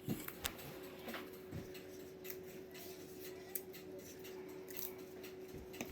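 Faint scattered clicks and light handling noises as dill sprigs are laid over pesto-covered pork, over a steady low hum.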